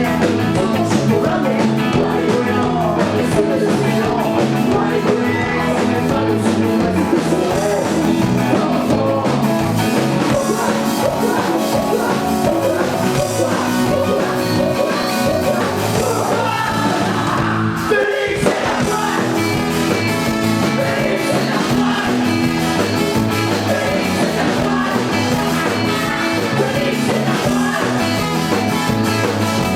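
Live ska-punk band playing: drums, guitars and bass with a sung vocal line, the music breaking off briefly about two-thirds of the way through before coming back in.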